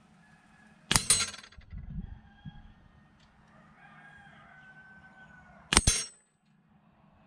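Air-gun pellets strike steel knock-down paddle targets twice, about five seconds apart. Each hit is a sharp metallic clang with brief ringing, and after the first the knocked paddle clatters as it swings over.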